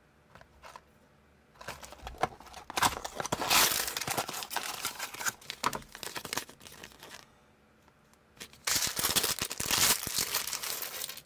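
Unboxing of a small toy brick set: the cardboard box is opened and the paper instruction leaflet and plastic parts bag are handled, crinkling for about five seconds. After a short pause, a second crinkling burst of a couple of seconds as the clear plastic parts bag is torn open.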